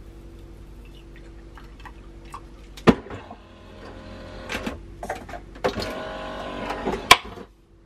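Clicks and clatter of a Nespresso capsule coffee machine being loaded by hand: the head is opened, a capsule is set in, and the head is shut. Two sharp clicks stand out, one about three seconds in and a louder one about seven seconds in, over a low steady hum.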